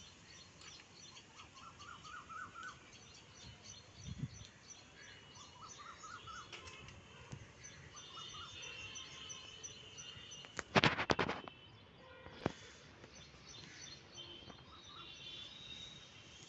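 Small birds chirping and calling in the background, with runs of short quick notes. A brief loud clatter of knocks comes about eleven seconds in, followed by a single click.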